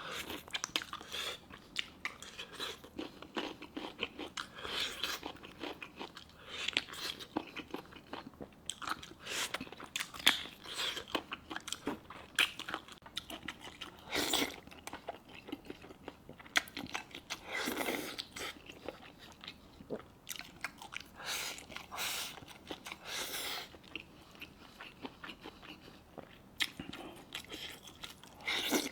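A person chewing and biting into braised pork knuckle, meat and tendon. Irregular mouth sounds and chewing clicks keep coming, with no steady rhythm.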